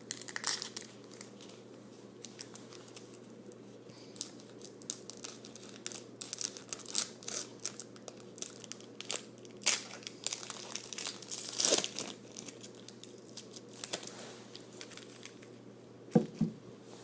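Foil wrapper of a Yu-Gi-Oh booster pack crinkling and being torn open by hand, in irregular bursts of crackling rustle. Two short knocks near the end.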